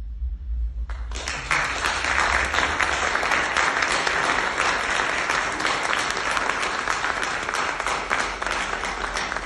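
Audience applauding, starting about a second in and keeping up steadily, with one pair of hands clapping close by.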